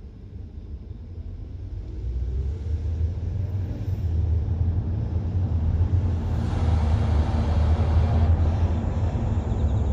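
BMW E90 323i on the move, a low rumbling drone that builds louder over the first several seconds as it gathers speed, then holds steady. It is the left-rear noise that the owner suspects comes from a worn hub bearing.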